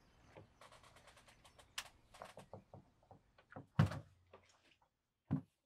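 A front door being handled and opened: a run of small clicks and knocks from the handle and frame, a heavier thunk about four seconds in and another just after five.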